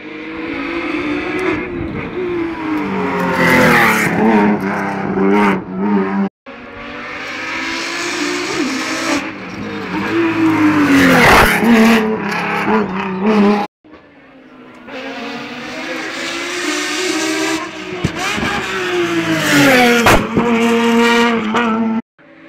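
Open sports-prototype racing cars at full throttle on a hillclimb, each engine note climbing in pitch and dropping at every gear change, growing loud as the car passes close and fading away. Three separate passes, each cut off abruptly.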